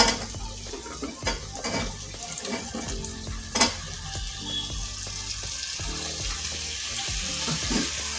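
Chopped drumstick pieces frying in oil and tomato masala in a pan: a steady sizzle that grows a little louder in the second half, with a couple of sharp knocks of a spoon against the pan, at the start and about three and a half seconds in.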